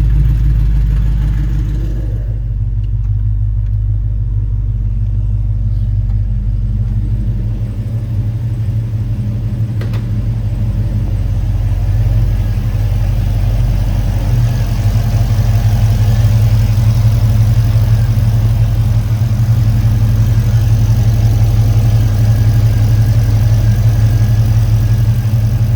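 LS3 6.2-litre V8 idling steadily through a valved exhaust, shortly after a cold start. The tone changes about two seconds in, there is a brief click near ten seconds, and the engine grows a little louder over the second half.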